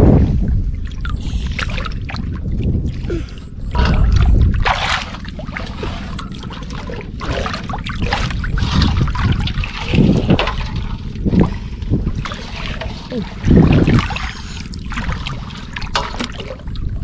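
River water sloshing and splashing around people wading chest-deep and moving a metal basin through it, in irregular bursts.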